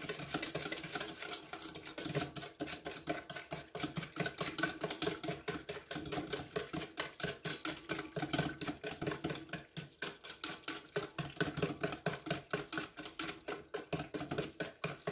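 Wire whisk beating heavy whipping cream and sugar in a stainless steel bowl: a fast, even clatter of wire against metal, several strokes a second, as the sugar is whisked until it dissolves into the cream.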